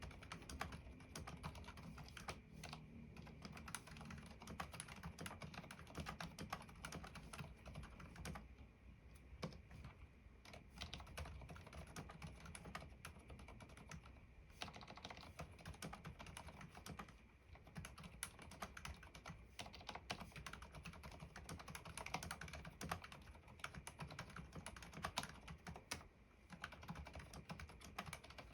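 Typing on a mechanical keyboard with TAUCHE.T silent black switches, lubed with Super Lube spray and with Permatex-lubed stabilizers: a quiet, continuous run of muted key presses, broken by a few brief pauses.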